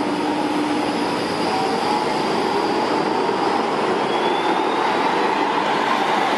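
Street trams rolling past close by: a steady loud rumble of steel wheels on rail, with a faint high whine that rises about four seconds in.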